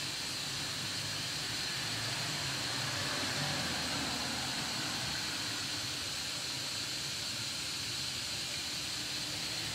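Steady hiss of outdoor background noise with a thin, steady high-pitched tone over it; no distinct event stands out.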